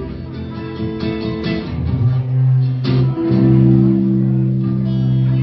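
Instrumental music led by guitar, with plucked strings and bass guitar holding sustained notes; a deep bass note comes in about two seconds in.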